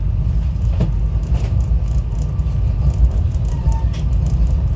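SEPTA Regional Rail train running along the track, a steady low rumble heard from on board.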